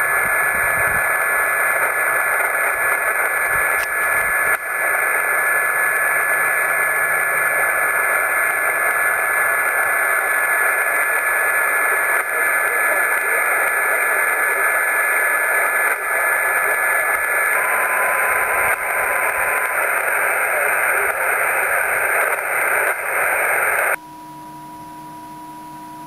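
A Yaesu portable shortwave transceiver's speaker hissing with 40-metre band noise, with a thin steady whistle in the hiss: the weak signal of a 1-milliwatt homebuilt beacon close to the noise. Near the end the hiss cuts off suddenly and a quieter steady tone is left.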